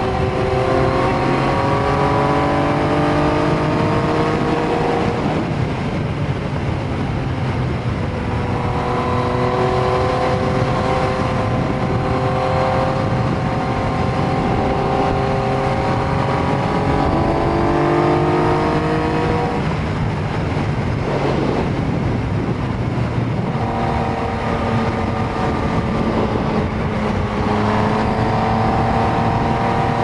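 Yamaha MT-09's 847 cc inline-three engine under way, its note climbing slowly in long pulls, broken twice by short lulls. A steady rush of wind and wet-road tyre noise runs beneath it.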